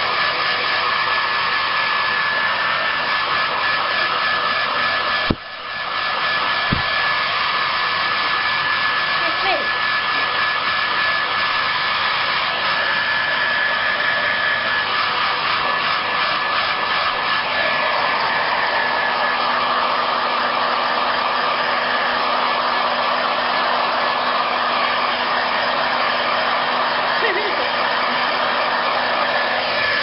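Hair dryer blowing steadily, with a thin high whine over the rush of air. About five seconds in, its sound drops sharply for a moment and recovers.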